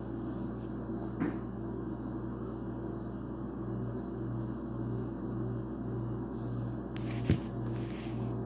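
A steady low electrical hum. A few seconds in it starts to pulse, about twice a second, and there is a faint click about a second in and a sharper click near the end.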